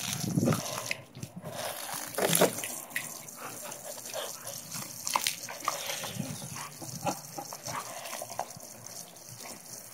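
Water spraying from a garden hose, a steady hiss, as a German Shepherd bites and splashes at the stream. A brief dog vocalization comes about two seconds in.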